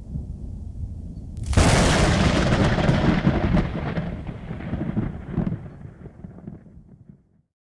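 Thunder sound effect: a low rumble builds, then a sudden loud crack about a second and a half in rolls away over several seconds and dies out just before the end.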